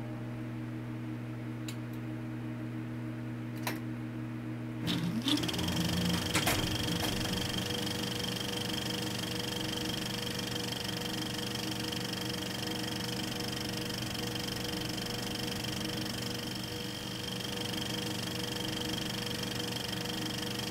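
Cinema film projector: a steady hum with a few clicks, then about five seconds in its motor spins up and it runs on with a steady mechanical whir.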